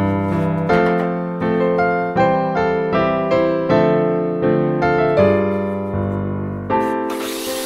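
Background piano music, notes and chords struck in a steady rhythm of about one every three quarters of a second. Near the end a steady hiss comes in beneath the music.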